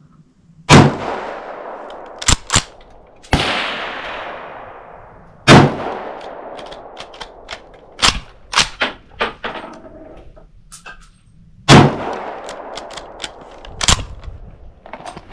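Three loud shots from a Steyr Mannlicher M95M straight-pull rifle in 8mm Mauser, about five to six seconds apart, each with a long echoing tail. Sharp metallic clacks of the bolt being worked come between the shots, and there is a quieter bang after the first shot.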